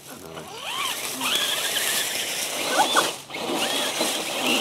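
Electric motors and gear drives of Axial RC rock crawlers whining as they are throttled, the pitch sweeping up and down in short bursts as the trucks climb and pause.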